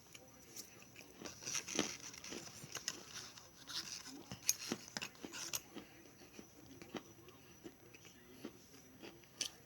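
Chewing on something crunchy: irregular crisp crunches and crackles, thickest in the first half and thinning out later.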